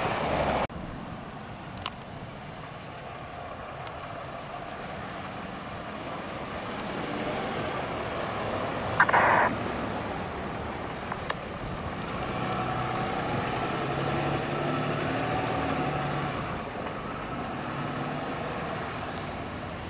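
Fire department pickup truck engine running as it pulls out and drives away, loudest in the middle third. There is a short, loud hiss-like burst about nine seconds in.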